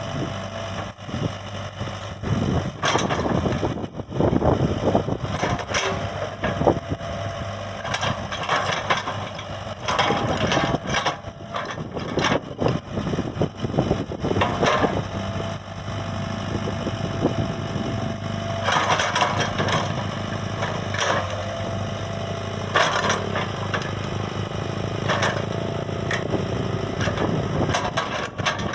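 Komatsu PC75UU excavator's diesel engine running steadily, with irregular crunching and knocking from the machine at work.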